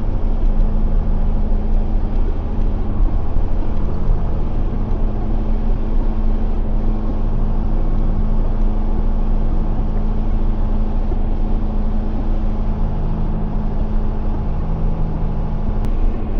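Farm tractor engine running steadily under way, a constant drone with a low rumble.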